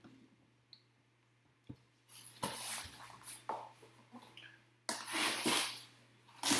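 Cardboard shipping case being gripped and turned on a tabletop: a few faint clicks, then from about two seconds in two stretches of cardboard rubbing and scraping. A faint steady hum runs underneath.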